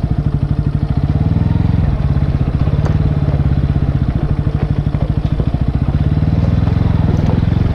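Bajaj Pulsar NS160 BS6's single-cylinder engine running at low revs in a fast, even putter, the revs rising and falling a little.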